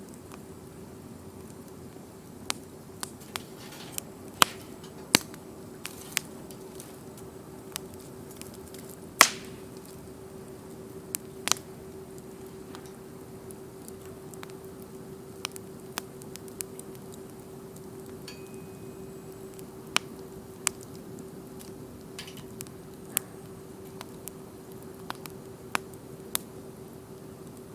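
Wood campfire crackling, with sharp pops at irregular intervals, the loudest about nine seconds in, over a steady low hum.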